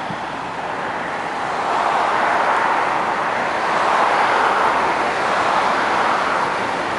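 Road and traffic noise: a steady rushing hiss that swells over a few seconds and then eases slightly, as from a vehicle going by.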